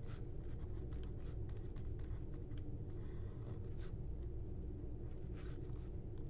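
Stylus writing on a tablet screen: scattered short scratches and taps as handwritten strokes are drawn, over a low steady hum.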